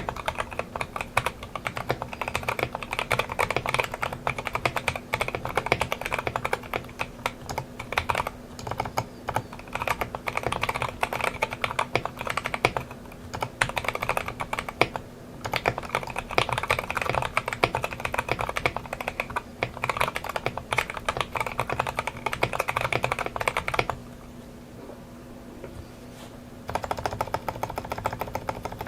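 Mechanical keyboard fitted with Lelelab Y2K tactile MX-style switches being typed on continuously, a rapid run of key clacks. The typing stops for about three seconds near the end and then resumes, leaving a faint steady low hum in the pause.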